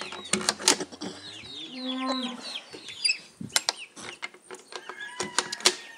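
Chickens clucking and chirping, with short calls scattered throughout and a longer pitched call about two seconds in. Several sharp clicks sound among the calls.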